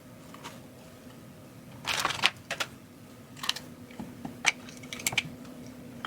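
Guitar effects pedals being handled and moved about on a wooden pedalboard: a short scraping rustle about two seconds in, then scattered sharp clicks and knocks, over a steady low hum.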